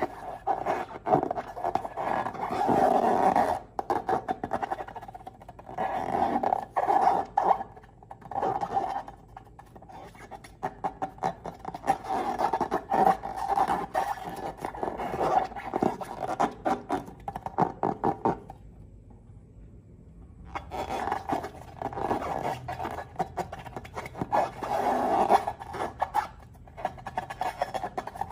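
Sticky slime being squeezed and worked in the hands, with dense crackling and squelching. It stops for about two seconds partway through, then resumes.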